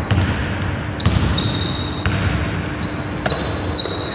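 Basketball bouncing on a hardwood court, several thuds at uneven intervals, with a steady high-pitched tone in the background.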